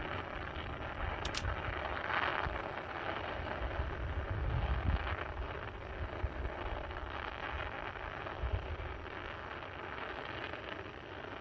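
Distant fireworks display: a continuous rumble of booming and crackling shell bursts, with stronger thumps about five and eight and a half seconds in.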